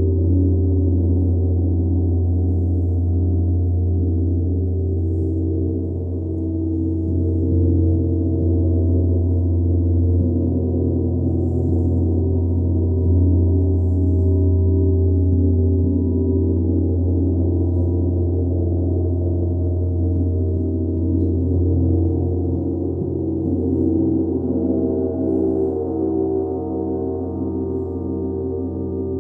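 Large hammered bronze gong played continuously with a soft ball-headed mallet, building a deep, sustained wash of sound. Its overtones pulse slowly over a steady low hum, with no sharp strikes standing out.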